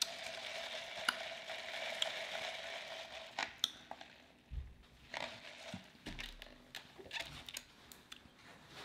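Drink being sipped through a straw from a large fountain-drink cup: a steady airy sucking hiss for about the first four seconds, then scattered small clicks and mouth sounds.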